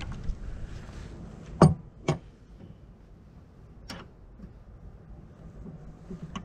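A few sharp metal clicks and knocks as a wire-form rod holder's threaded shaft is screwed back into its base mount: two close together about a second and a half in, another near four seconds, and one more at the end, over a low steady background.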